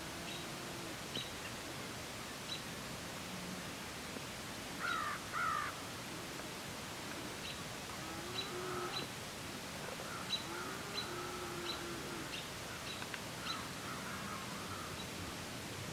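Outdoor ambience with birds calling. Two loud calls come in quick succession about five seconds in, short high chirps repeat irregularly throughout, and a few fainter calls follow later.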